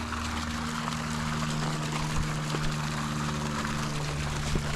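Steady mechanical hum with water trickling and bubbling: a pond aerator running.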